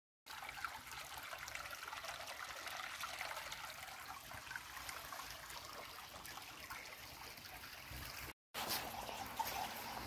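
Water trickling steadily in a small, shallow brook. The sound drops out for a moment about eight seconds in.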